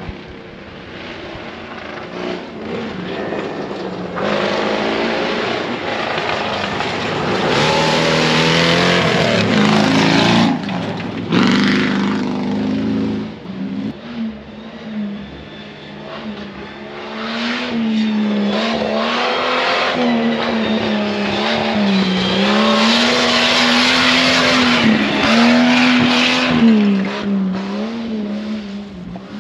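Off-road race vehicle's engine revving hard on a dirt course, its pitch rising and dropping again and again. It comes in two loud stretches with a quieter dip in between.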